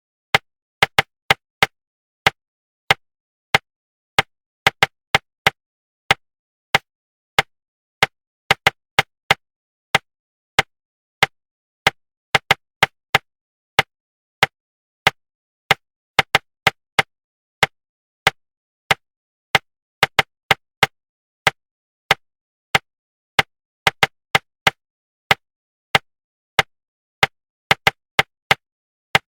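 A rhythmic knocking pattern of crisp, dry knocks with dead silence between them. Single knocks come at a little under two a second, broken up by quick pairs and triplets. It is a rhythm-knock pattern of the kind used to suppress inner articulation (subvocalization) while speed reading.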